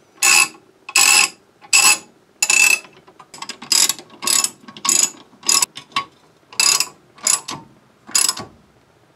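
Hand ratchet wrench clicking in short bursts as the bolts of a brake dust shield are run in. The bursts come roughly every half second to second and stop near the end.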